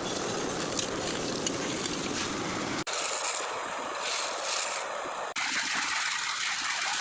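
Steady noise of machinery running at a concrete pour, changing abruptly about three seconds in and again about five seconds in.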